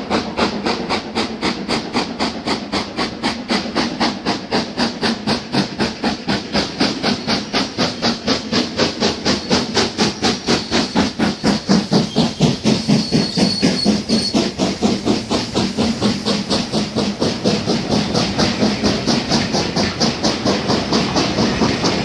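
LMS Black 5 two-cylinder 4-6-0 steam locomotive No 44871 working under steam, its chimney exhaust beating about four to five times a second. The beats grow louder as it approaches and are loudest about twelve seconds in as it passes. Its coaches then roll by with the beat still going.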